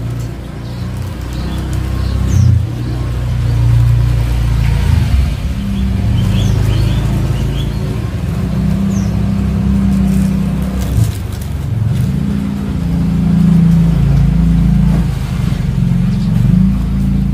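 A low, steady motor rumble, like a vehicle engine running nearby, with a few short bird chirps about five to seven seconds in.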